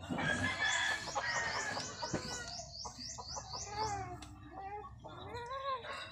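Chickens clucking, with a quick run of high chirps, about four a second, in the first half and a single knock about two seconds in.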